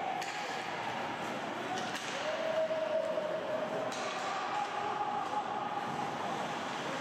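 Ice hockey play in a rink: a steady wash of noise broken by a few sharp clacks of stick and puck, with voices echoing in the arena.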